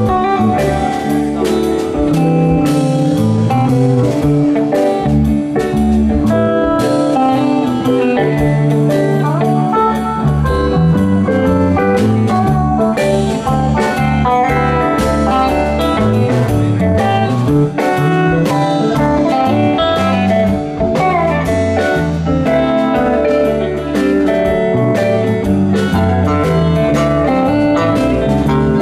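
Live rock band playing an instrumental passage: electric bass, electric guitars and drums.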